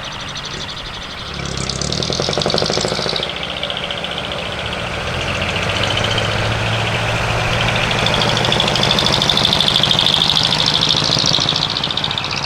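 Diesel engine of a large decorated truck running, its note rising about a second and a half in and swelling again in the second half as it pulls in.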